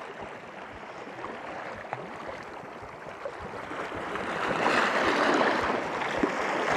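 Water lapping and splashing, a steady rushing noise with small crackles that grows louder about four seconds in.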